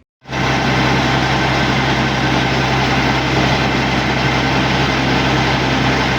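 Wirtgen W2000 road milling machine's heavy diesel engine running loud and steady, with a deep hum under a dense mechanical roar; it cuts in abruptly just after the start.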